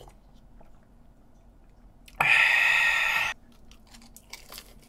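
A man's mouth sounds while eating: one loud breathy sound lasting about a second, about two seconds in, with faint clicks and chewing around it.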